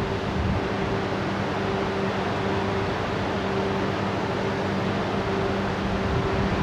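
E5 series shinkansen pulling slowly into the station, a steady rushing running noise with a low hum under it.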